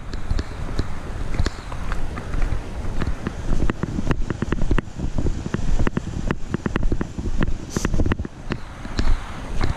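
Walking footsteps on a packed gravel trail, with a chest-strap-mounted GoPro jostling at each step, giving irregular knocks several times a second over a low rumble of handling and wind noise on the microphone. A creek running alongside adds a faint steady hiss.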